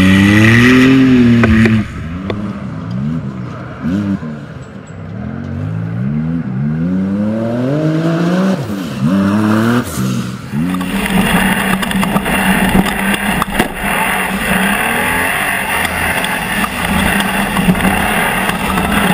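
Off-road racing buggy engine revving hard at launch, then rising and dropping again and again as the car accelerates up through the gears. From about eleven seconds in the sound turns into a steadier, denser din.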